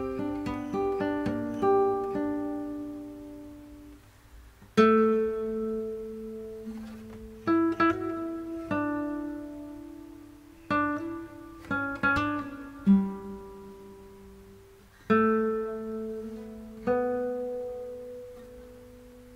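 Background music: a slow acoustic guitar piece of picked chords and single notes, each one left to ring and fade before the next.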